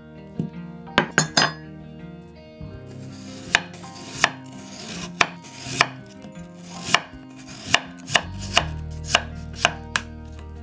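Kitchen knife cutting food on a cutting board: a few quick cuts about a second in, then steady single cuts from about three seconds in, one to two a second.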